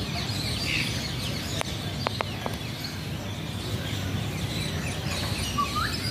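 Many small birds chirping, with a steady low rumble of background noise underneath. A few sharp clicks come about two seconds in, and a short rising call comes near the end.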